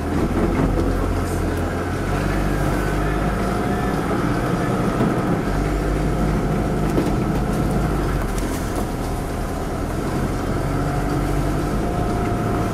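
Car engine running at low speed, heard from inside the cabin on a rough, muddy dirt track, with a steady rumble and occasional knocks from the car bumping over the ruts.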